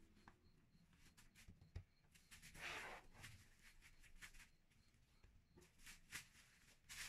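Near silence, with faint crinkling of plastic cling film and a few light taps as a block of dough is set on a plate and wrapped.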